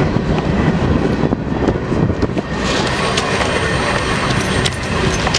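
Freight train of tank and hopper cars rolling along the track, a steady heavy rumble of wheels on rails, with a faint high wheel squeal joining about halfway through.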